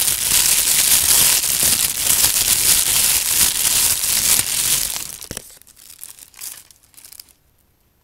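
Thin plastic bag crinkled and scrunched in the hands right at the microphone: a dense, loud crackle that thins to a few sparse crinkles about five seconds in and dies away near the end.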